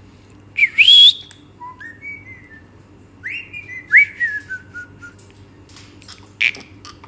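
Indian ringneck parrot whistling and chirping: a loud rising whistle about a second in, a few softer chirps, then two whistles that jump up and slide down in pitch.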